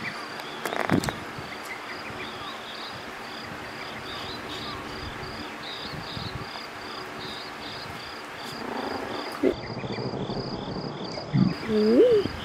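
Crickets chirping in an even rhythm, about two to three chirps a second, over the steady whoosh of an electric fan. Near the end a Maltese dog lets out a short whine that rises and falls in pitch.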